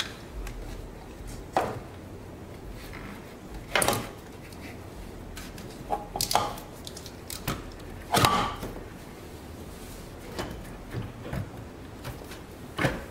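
Scattered knocks and clunks, about five in all, from a rebuilt vacuum brake booster being handled and turned against a truck's firewall.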